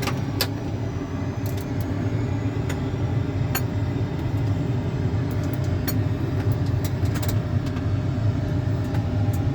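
Steady low rumble inside a full-motion Boeing 737-800 flight simulator's cockpit during the climb: the simulated engine and airflow noise, with a few light clicks scattered through it.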